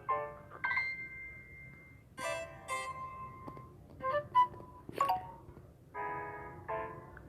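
Samsung Galaxy J2 Prime phone tones: a string of short electronic chimes and melodic notes, one held note about a second long, separated by brief pauses.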